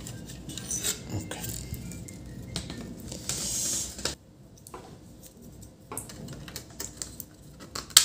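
Clicks and clatter of a laptop motherboard and display panel being handled on a wooden table, with a short scraping slide a little past three seconds in and a sharp click at the very end.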